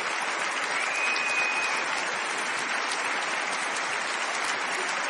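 A large audience applauding steadily after a country song ends, with one long, high whistle from the crowd about a second in.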